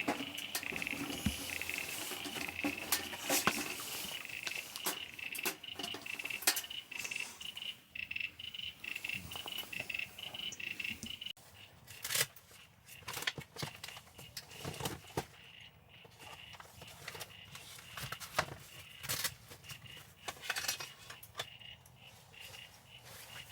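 Frogs calling in a steady, high-pitched night chorus, over frequent sharp crackles and pops from a wood fire. The sound gets quieter abruptly about eleven seconds in.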